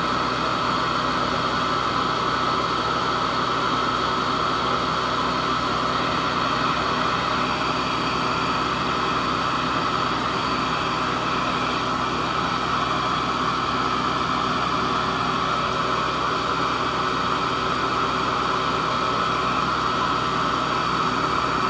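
Hoover Model 28 vacuum cleaner running steadily at full power with a hose fitted, its motor giving a constant whine over the rush of air.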